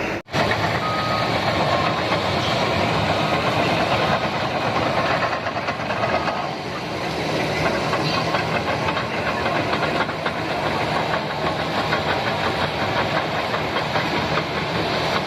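Liebherr PR 745 crawler dozer running steadily with a loud mechanical din, broken by a momentary cut in the sound just after the start.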